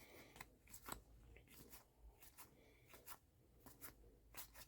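Faint ticks and swishes of trading cards being slid and flipped one after another through a pile.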